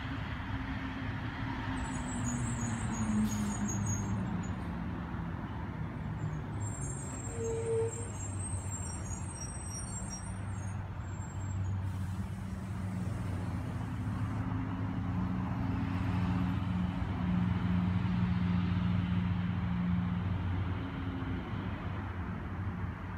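Motor vehicle engine rumble, its pitch sliding down a few seconds in and then holding a steady hum, with brief faint high chirps in the first half.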